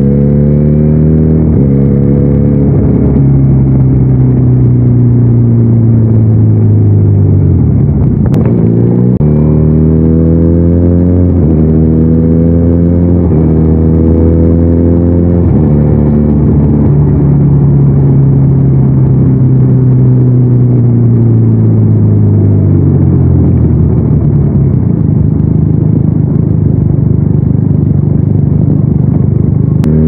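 Benelli 302R's parallel-twin engine under way, pulling through the gears: its pitch climbs and drops sharply at each upshift, then falls in long stretches as it slows on a closed throttle before pulling up again.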